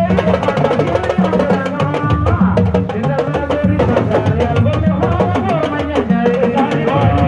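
Music: drumming with a wavering voice singing or chanting over it.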